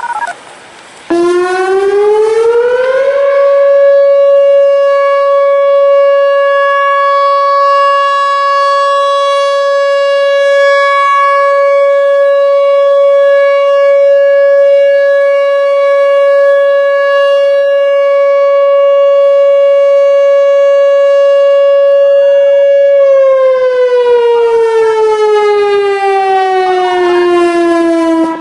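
Whelen WPS-4004 electronic outdoor warning siren sounding its steady Alert signal. It winds up over about two seconds and holds one loud, steady pitch with a stack of overtones for about twenty seconds. Near the end it slowly winds down in pitch.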